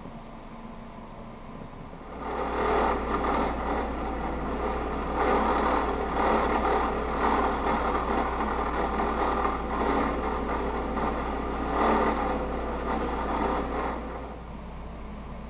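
Benchtop drill press motor humming, with the rough grinding rasp of leather pressed against a ribbed tool spinning in the chuck. The rasp swells and eases over several seconds, starting about two seconds in and fading out near the end while the motor hum carries on.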